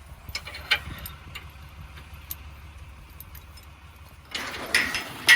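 Truck engine running at idle with a steady low hum and scattered light clicks, then a burst of clattering with a sharp knock near the end as the engine hum drops away.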